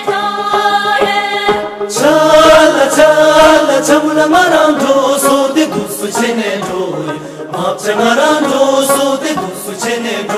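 Group of voices singing a chant-like folk song for a dance, on held notes at first, then louder with a moving melody from about two seconds in.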